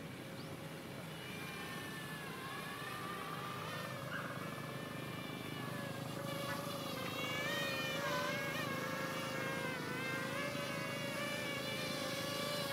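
DJI Ryze Tello mini quadcopter in flight, its propellers whining, the pitch wavering and the sound growing louder.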